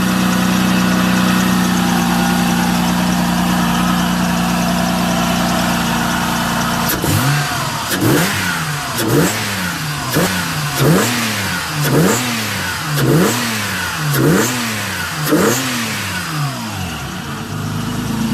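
Mazda 626's 2.5-litre V6 idling, then, about seven seconds in, revved in about nine quick blips roughly a second apart before dropping back to idle. The engine is cold and, by the owner's account, still shaking with the cylinder 1 misfire after a fuel rail change.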